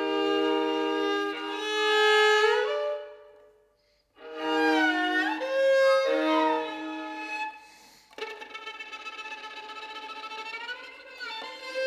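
Solo violin playing a contemporary piece: held double stops with upward slides between notes, in three phrases broken by brief silences. The third phrase, from about eight seconds in, is quieter, with a fast flickering texture.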